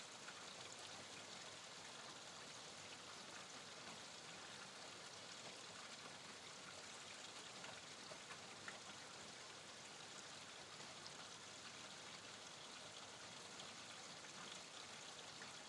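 Steady rainfall: an even hiss of rain with scattered individual drops ticking.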